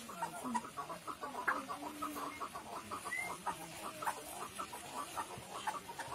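Chukar partridge calling: a fast, continuous run of short clucking "chuck" notes.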